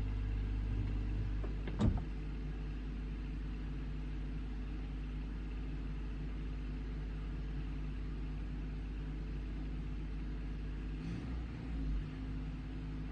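Backhoe engine running steadily, with a sharp knock about two seconds in and a low thump near the end.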